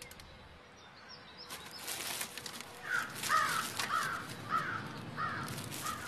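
Hooded crow cawing: a run of about six short calls, roughly half a second apart, starting about three seconds in. Before and under them, a scratchy rustling as the crow picks at a paper plate in a wooden bin.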